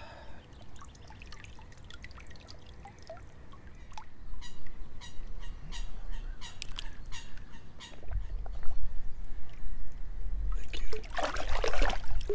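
Lake water dripping and splashing as a mirror carp is held up and then lowered back in by a person wading in the water, with a louder splash near the end as the fish is let go.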